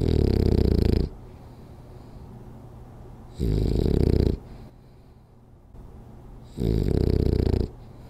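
French bulldog snoring in its sleep: three loud snores, each about a second long, coming evenly about every three seconds.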